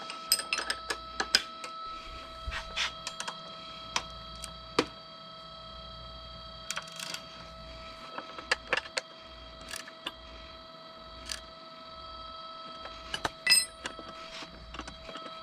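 Irregular metallic clicks and clinks of a 14 mm socket wrench being worked to tighten the nuts on the fork-mount rod.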